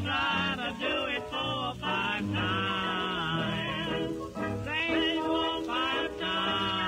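Background music with a singing voice over a repeating bass line.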